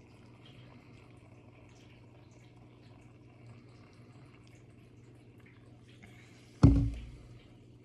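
Faint fizzing crackle of carbonated cola, then one sharp knock with a short ringing decay about six and a half seconds in.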